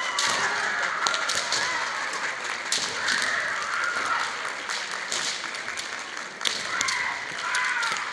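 Female kendo players shouting kiai, long high-pitched wavering yells, three times, over sharp clacks and strikes of bamboo shinai during sparring.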